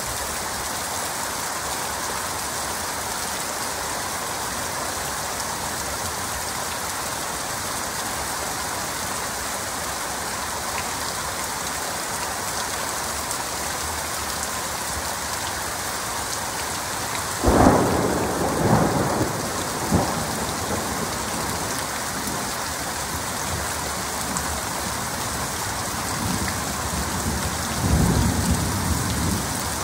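Heavy rain falling steadily. About seventeen seconds in, a sharp clap of thunder rolls on in rumbles for a couple of seconds, and a lower rumble of thunder follows near the end.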